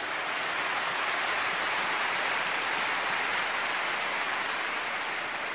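Crowd applauding, swelling over the first second or two and slowly dying away near the end.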